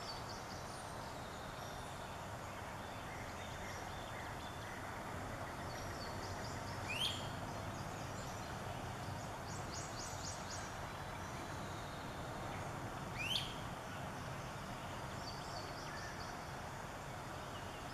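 Northern waterthrush giving two loud, sharp chip calls about six seconds apart, each a quick upward sweep. Faint song of other birds and a steady background hiss run underneath.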